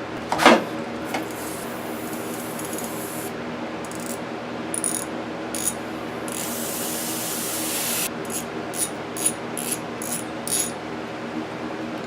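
Socket ratchet clicking in short runs while a 10 mm screw is worked loose, after a sharp knock near the start; the clicks come fastest about two-thirds of the way in. A steady hum runs underneath.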